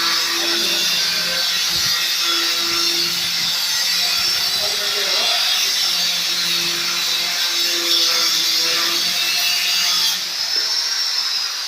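Power tool running steadily with a harsh, high-pitched hiss, as in cutting or drilling work; it eases off near the end.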